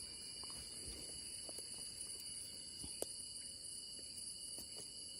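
Night-time jungle insect chorus: several steady high-pitched trills held without a break, with one faint click about three seconds in.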